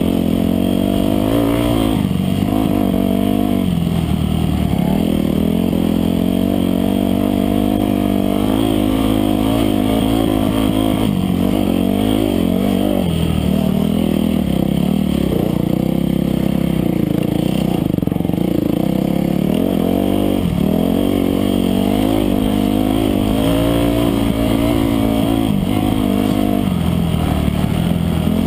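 Off-road dirt bike engine heard from on the bike itself, revving up and dropping back again and again as the rider accelerates, shifts and eases off over rough trail.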